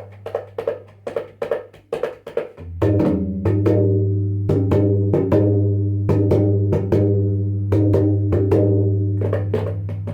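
Tabla's bayan (bass drum) played in a fast, dense run of strokes over its deep ringing bass tone. The bass swells much louder about three seconds in and sustains under the strokes to the end.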